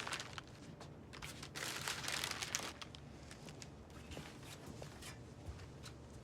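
Wrapping being handled: soft crinkling rustles, loudest a second or two in, with a few light clicks and knocks.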